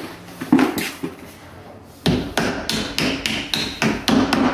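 Claw hammer blows on a pre-hung door jamb, nailing it up with a nail beneath a timber packer: one tap about half a second in, then from about two seconds in a quick run of blows, about four a second.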